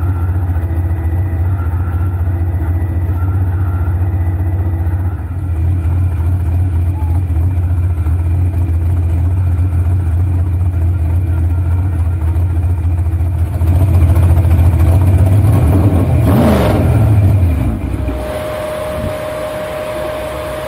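Dragster engine idling with a steady low rumble as the car rolls slowly, growing louder about two-thirds of the way through, then shut off and winding down in falling pitch. A steady high hum carries on after the engine stops.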